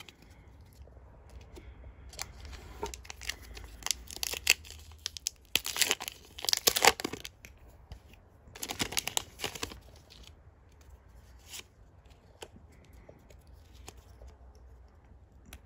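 Foil Pokémon TCG booster pack wrapper being torn open and crinkled in several noisy rips, loudest about six to seven seconds in and again around nine seconds. This is followed by faint light ticks of cards being handled.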